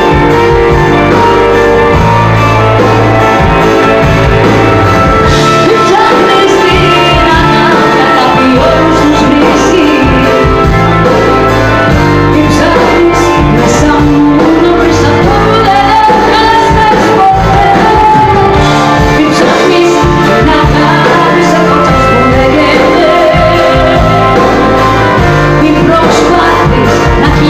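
Live pop-rock band, loud: a woman singing a Greek song into a microphone over drums, bass and guitar.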